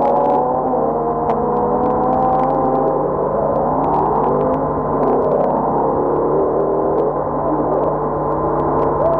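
Racing car engines running hard, several at once, their pitch falling and rising as the cars come past. Heard through an old, muffled film soundtrack with crackle.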